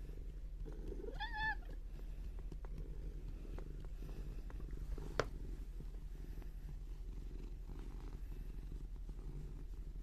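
Domestic cat purring steadily, with one short, arching meow about a second in and a single sharp click about five seconds in.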